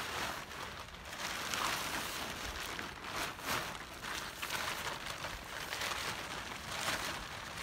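Plastic tarp crinkling and rustling as it is unfolded and shaken out by hand, in uneven swells.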